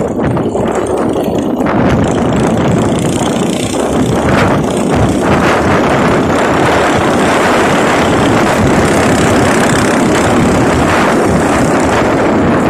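Steady rush of riding noise from a moving motorcycle: wind buffeting the microphone over the running engine.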